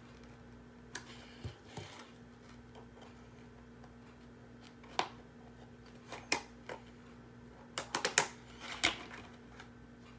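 Toy packaging being worked open by hand: scattered sharp plastic and cardboard clicks and crackles, thickest near the end, as the hard-to-open box is pulled and pried at.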